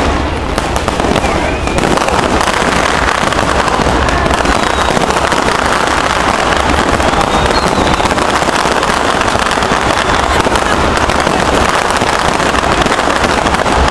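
Fireworks display with many shells and fountains going off at once, a loud, dense, unbroken crackle of bursts.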